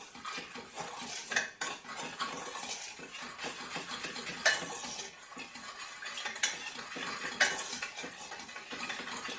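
A spatula stirring sugar and water in a small stainless steel saucepan: steady scraping against the pan's bottom, with a few sharper clicks against the metal. This is the sugar being mixed into the water, cold, before the heat goes on for caramel.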